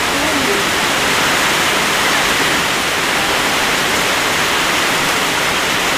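Heavy rain falling steadily, an even hiss of rain with no breaks.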